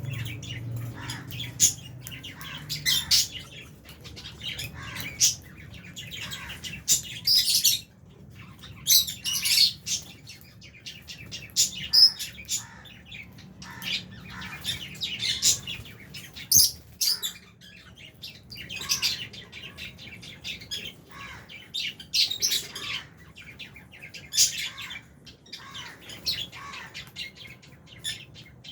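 A flock of lovebirds chirping: many short, high chirps overlapping in quick clusters, one cluster every second or so.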